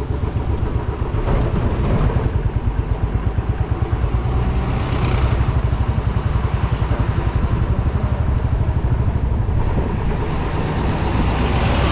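Motorcycle running while riding along, a steady heavy low rumble that pulses rapidly.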